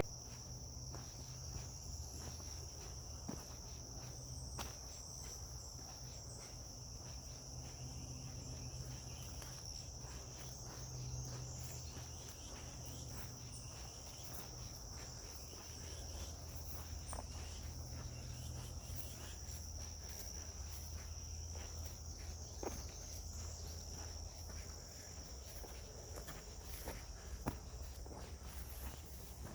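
Steady, unbroken high-pitched insect chorus, with scattered faint clicks and taps.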